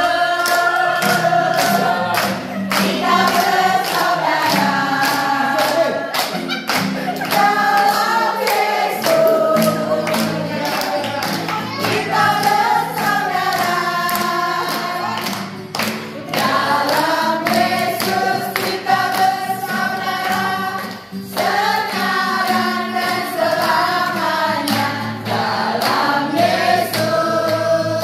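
A large group singing together to an acoustic guitar, clapping their hands in time.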